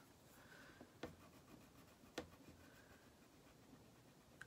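Faint scratching of a wax crayon colouring on paper, with two light taps about a second apart.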